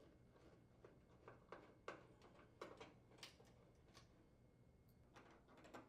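Near silence with a few faint, scattered clicks and taps as the upper screws securing the oven door's retaining brackets are unthreaded.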